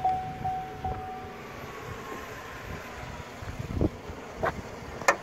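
A vehicle door-open chime dings three times as the driver's door stands open, over the steady low running of the GM Tahoe's idling 6.0L V8 and some wind on the microphone. A few sharp clicks or knocks come near the end.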